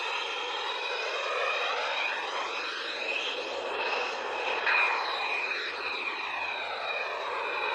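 Fighter jet engines at taxi power, an F-15 and an F-16 taxiing close by: a steady high whine over a broad rushing roar. The tone sweeps up and down as the F-16 moves past, with a brief swell about five seconds in.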